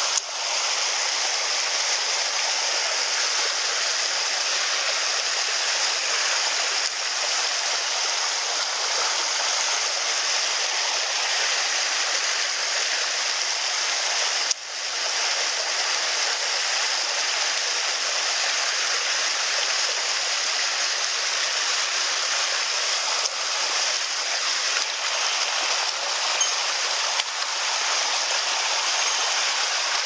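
Small rocky mountain stream rushing and splashing over boulders, a steady even noise that dips briefly about halfway, with a few faint ticks.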